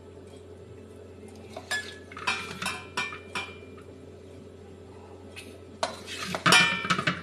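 A ladle scraping and knocking against a metal wok while scooping up sauce, in two bouts of clinks: one starting about a second and a half in and a louder one near the end. A steady low hum runs underneath.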